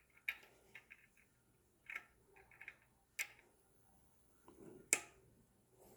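Light, irregular clicks and taps of small bicycle hub parts handled by hand, as a new hub cap is turned and fitted to line up its machined flats with the axle. The loudest click comes about five seconds in.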